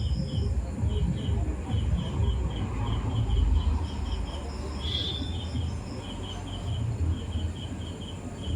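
A steady run of short, high chirping calls, about four a second and often in pairs, over a loud low rumble.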